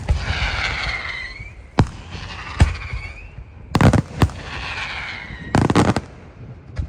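Fireworks display: sharp bangs of exploding shells, some single and some in quick clusters, with whistling tones that fall in pitch between them.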